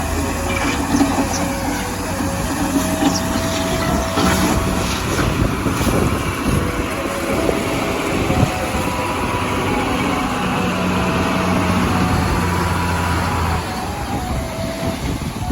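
Heavy road-construction vehicle's diesel engine running steadily, with scattered clattering knocks over it; the engine note drops about three-quarters of the way through.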